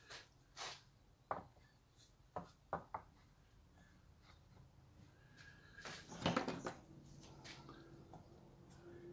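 Light knocks and clicks of small wooden parts being handled and set down on a plywood board, with a louder cluster of knocks about six seconds in.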